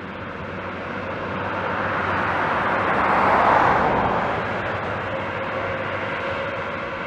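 Airbus A320neo airliner's Pratt & Whitney geared turbofan engines running as it passes on the ground. The engine noise swells to its loudest about halfway through, then fades as the jet moves on.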